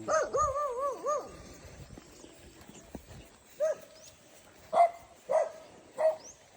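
Dog whining and yelping in high, wavering cries: a warbling run of whines for about a second at the start, then four short separate yelps spread over the second half.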